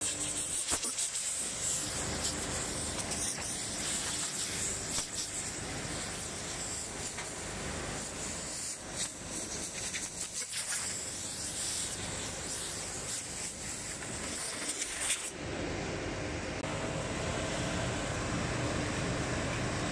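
Industrial panel sanding line running, a steady noise of motors and air with no clear pitch. The sound changes in character about three quarters of the way through.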